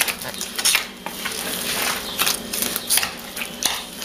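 Hand kneading soft, sticky bread dough in a plastic bowl, working melted vegetable shortening into it: a string of wet squishing strokes at irregular intervals as the fingers push and fold through the dough.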